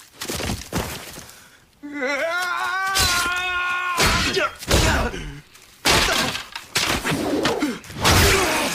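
A run of sharp crashing impacts, one after another, with a long wavering cry about two seconds in.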